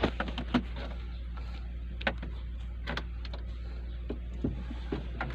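A few scattered sharp clicks and knocks of hands handling a truck's plastic dashboard panels and switches, over a steady low hum.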